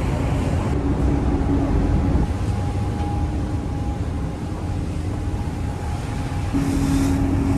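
Car ferry's engines running with a steady low drone and a constant hum, mixed with the rush of water along the hull; the hum grows louder about six and a half seconds in.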